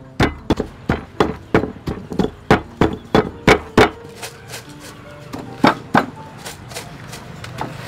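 Pestle pounding in a mortar: a steady run of knocks at about three to four a second, which stops about halfway through, leaving only a few scattered strikes.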